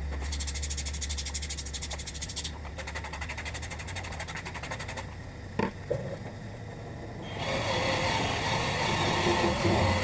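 Workpro 12-volt cordless sander/polisher working a plastic headlight lens. It runs in two short spells with a fast, fine rattle and stops about five seconds in. A couple of sharp clicks follow, then from about seven and a half seconds it runs again, louder and steadier.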